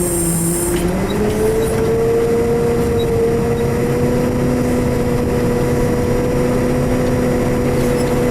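Heavy diesel vehicle engine running, rising a little in pitch about a second in and then holding steady.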